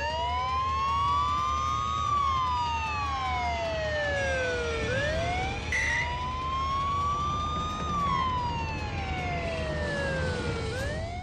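Police siren wailing in a slow cycle, about twice: each time it rises over about two seconds and then falls over about three. Low vehicle rumble underneath.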